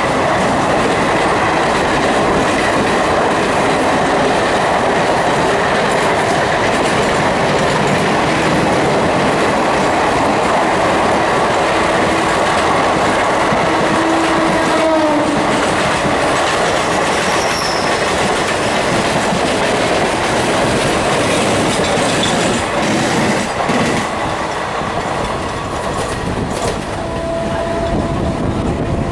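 An express train passing close by on the next track, its coaches' wheels clattering over the rail joints in a loud, steady rush, heard from aboard a moving electric local train. The noise eases a little near the end as the last coach goes by.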